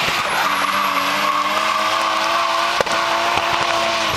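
Drift car's engine held at steady high revs while its spinning rear tyres squeal and skid sideways through a drift. A single sharp click about three seconds in.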